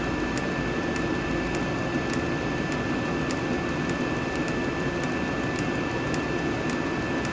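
Diesel air heater running: its fans hum steadily with a thin, steady high whine over the top. The fuel dosing pump ticks faintly and evenly, about every half second.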